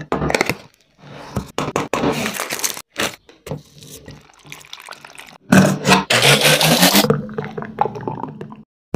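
A run of milkshake-making sounds. First a plastic ice-cream cup is handled and milk pours into a plastic blender jar over chocolate pieces. A bit over halfway in, a blender runs briefly, the loudest part with a low motor hum. Near the end, thick chocolate milkshake pours into a glass.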